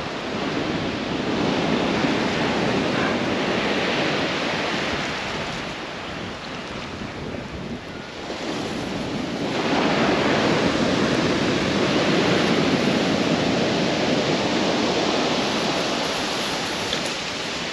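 Surf breaking on a shingle beach in a big swell, with wind buffeting the microphone. The wash eases for a couple of seconds about six seconds in, then builds again.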